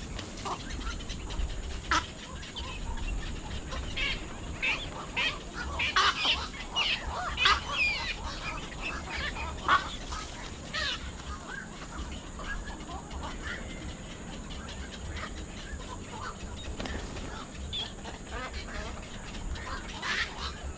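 Several birds giving short, repeated calls, busiest through the middle stretch and thinning out after, over a steady low rumble.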